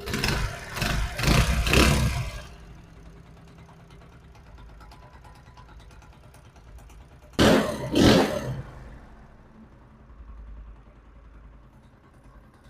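Motorcycle engine revved in short throttle blips: three or four close together in the first two seconds and two more about seven and a half seconds in. Between the blips it idles with a low, steady hum.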